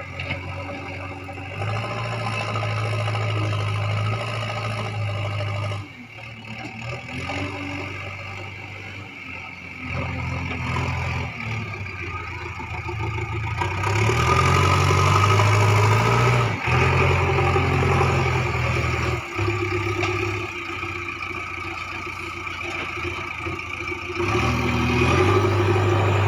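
JCB 3DX backhoe loader's diesel engine running and revving up again and again under hydraulic load as the front bucket scoops earth and lifts it. It is loudest while the loaded bucket is being raised.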